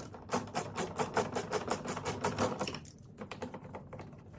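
Hand ratchet with a 10mm socket clicking rapidly, about eight clicks a second, as it backs out a door panel bolt; the clicking thins out and gets quieter about two-thirds of the way through.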